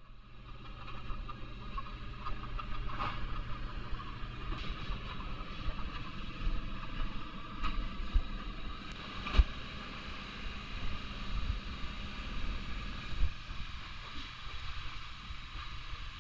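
Plastic spreader scraping and slapping body filler, mixing it on a mixing board and then spreading it over a welded joint on sheet metal, with scattered clicks and one sharp tap about nine seconds in, over a steady low hum.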